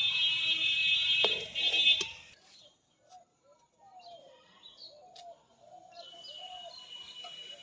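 A metal spatula scrapes around a metal wok (kadai) as the cooked cabbage and egg is scooped out. It makes a loud, harsh grating with a couple of sharp clicks for about two seconds, then stops. After that, faint short bird calls and chirps can be heard.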